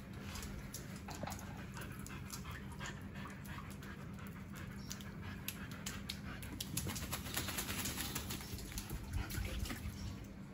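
Wet Siberian husky panting during its bath, with water spattering and dripping onto a tiled floor; the spatter is busiest in the second half.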